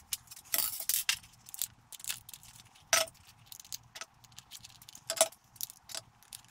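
Handling and screwing a plastic Look Keo cleat onto a cycling shoe sole: irregular small clicks, clinks and scrapes of a screwdriver, metal cleat screws and washers against the cleat. A longer scrape comes about half a second to a second in, and two sharper knocks about three and five seconds in.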